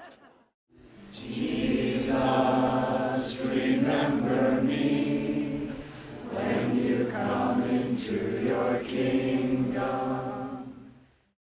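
A choir singing slow, held notes in two long phrases, with a short dip about six seconds in, stopping just before the end.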